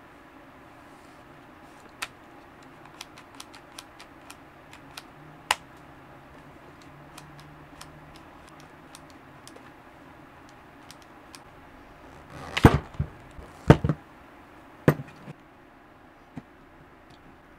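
Hard plastic clicks and knocks from hands handling a Bosch GDR 10.8-LI cordless impact driver and its slide-in 10.8 V battery pack. Light scattered clicks are followed about two-thirds of the way through by a cluster of louder clunks, then one more a second later.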